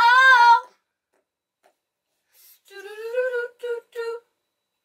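Two women's voices singing wordless notes: a high held note, a pause of about two seconds, then a rising note followed by two short notes.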